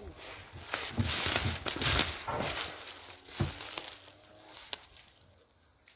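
Dry fallen leaves crunching and rustling underfoot: a run of steps through deep leaf litter, thinning out and dying away near the end.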